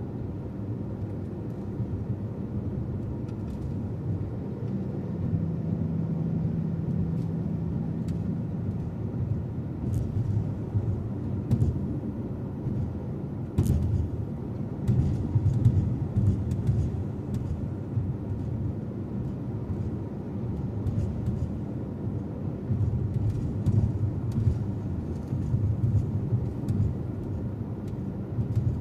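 Car being driven: a steady low road and engine rumble, with a few sharp knocks about halfway through.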